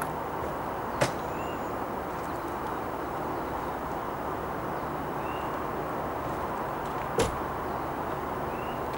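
Steady outdoor rushing noise, even in level throughout, with two sharp clicks, one about a second in and one about seven seconds in, and a few faint high chirps.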